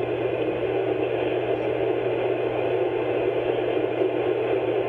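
Steady hiss with a low, even hum underneath and no distinct events: the background noise of the old recording, heard while the narration pauses.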